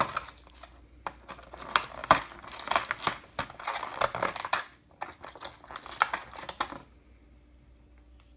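Clear plastic blister packaging crinkling and clicking as a small accessory is worked out of its tray, a quick run of sharp crackles for about seven seconds that dies away near the end.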